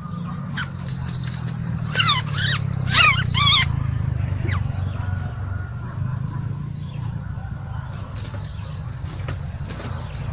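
Bird calls: a few quick chirps with a rapid wavering pitch about two to three and a half seconds in, over a steady low hum.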